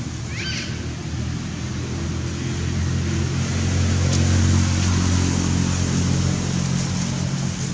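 A motor vehicle passing by on a nearby road. Its low engine hum grows louder to a peak about halfway through, then fades.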